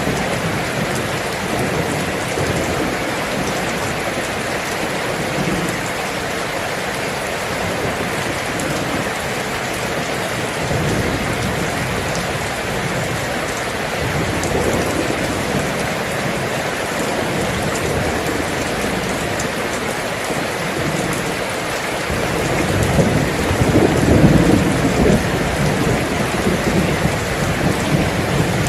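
Steady heavy rain falling. A low rumble of thunder swells in the last third and then eases.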